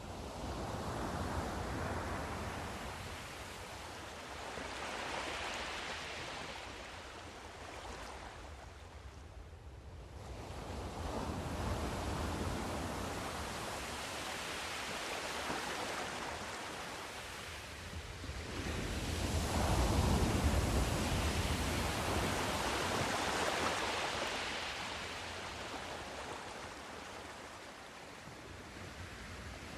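Sea surf: waves breaking and washing ashore in slow, overlapping surges that swell and fade every several seconds, the loudest about two-thirds of the way through.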